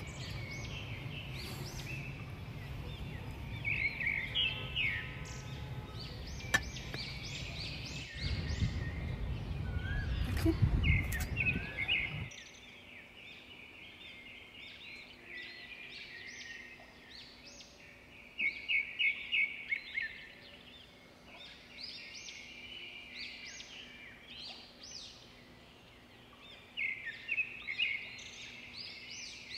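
Small birds chirping and trilling in quick bursts throughout, over a low rumble that grows louder and then cuts off abruptly about twelve seconds in.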